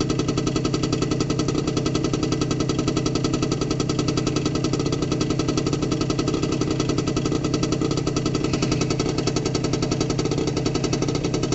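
Honda Elite SA-50 scooter's 49 cc two-stroke single-cylinder engine idling steadily while it warms up.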